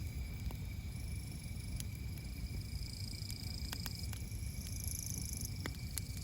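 Wood campfire crackling, with sharp pops scattered a few times over a steady low rumble. Insects keep up a steady high-pitched drone behind it.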